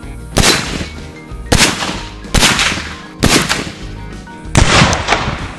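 Five loud Tannerite explosions, each a sharp blast with a short echoing tail, about a second apart, the last and longest near the end, over background music.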